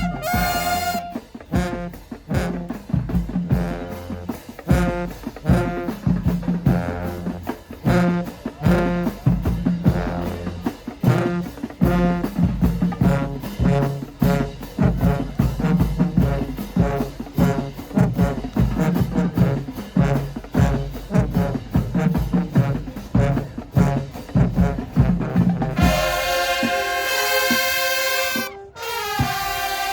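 High school marching band playing: drums and low brass in a fast, driving rhythm, then about 26 seconds in the full horn section comes in with loud held chords, breaking off for a moment near the end.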